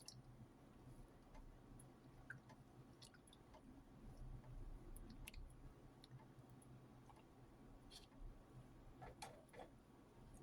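Near silence with scattered faint clicks and light taps, a few more together about nine seconds in: a utensil working powdered surfactant into a liquid soap base.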